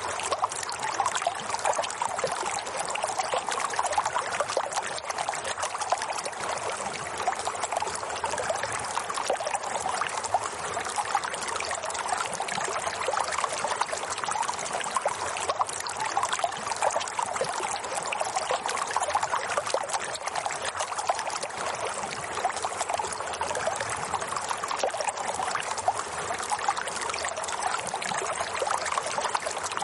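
Running water flowing steadily, without pause or change.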